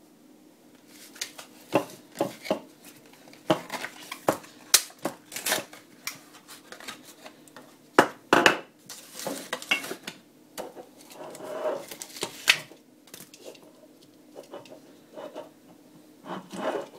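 Crème brûlée pots in a cardboard retail pack handled on a hard worktop: irregular sharp clicks and knocks as the pots are moved and set down, with cardboard rustling. Near the end comes a short scratchy rustle as the foil lid is picked at.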